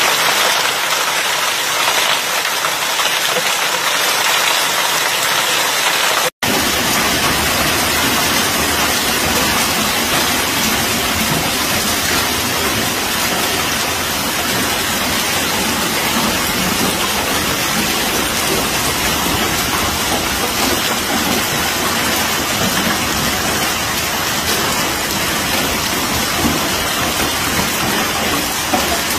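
Heavy hailstorm with rain: a loud, steady hiss of hail and rain pelting down. The sound drops out for an instant about six seconds in and picks up again with a heavier low rumble underneath.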